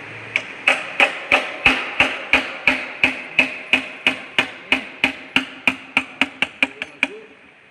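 A hammer striking metal about twenty times in a steady rhythm of roughly three blows a second, quickening near the end. Each blow leaves a short metallic ring.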